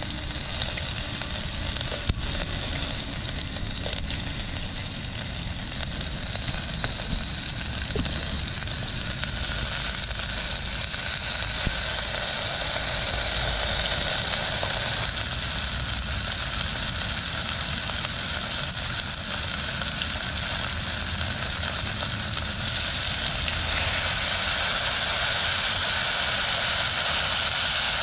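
Chopped onion, sweet corn and tomato sizzling as they fry in an aluminium pot, a steady hiss. The sizzle grows louder about four seconds before the end.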